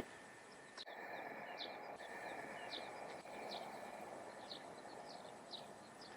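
Small birds chirping faintly, short high falling chirps repeated about twice a second, over a faint steady outdoor hiss.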